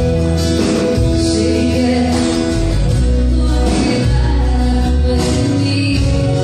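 Live band music with singing, played loud over a concert hall's sound system, with a heavy pulsing bass under sustained held notes.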